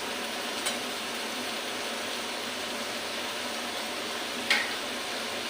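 Pumpkin and pumpkin greens frying in spiced oil in a pan, a steady sizzle, with two light clinks, one about a second in and a louder one near the end.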